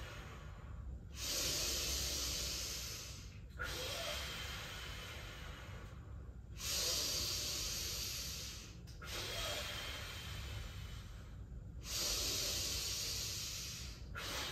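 A pregnant woman's slow, deep core-breathing (TA breaths), in through the nose and out through the mouth with the core squeezed. About three full breath cycles: each breath is a hiss of two to three seconds, with short pauses between, and every other breath is louder.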